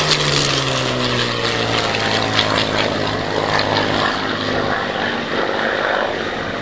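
Supermarine Spitfire's V12 piston engine running as the fighter passes by; the engine note drops in pitch over the first two seconds, then holds steady.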